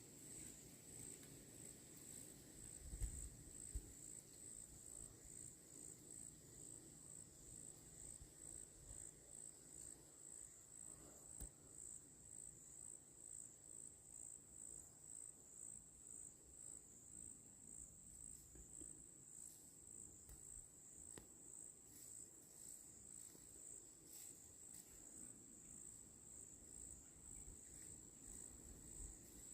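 Faint insect chorus: one high-pitched, steady trill that pulses about one and a half times a second. A couple of soft low bumps come about three seconds in.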